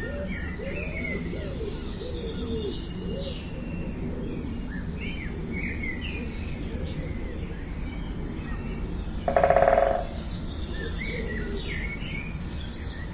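Small birds chirping and calling on and off over a steady low background rumble. About nine seconds in, one loud, short pitched call or honk cuts in for under a second.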